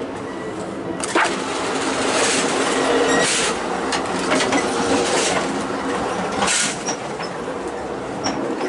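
Amtrak Superliner train running, heard in the passage between two cars: a loud steady rushing rattle from the wheels and car connection, with scattered clunks and knocks. After a sharp click about a second in the noise gets louder, then eases off again later.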